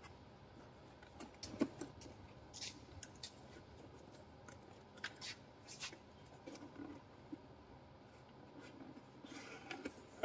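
Cardboard box being folded and handled by hand: scattered short scrapes, rustles and light taps of the board, the loudest about one and a half seconds in.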